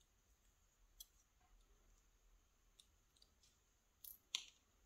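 Small metallic clicks from handling a brass lock cylinder and plug with a thin steel tool while taking it apart: a few faint ticks, then two sharper clicks near the end.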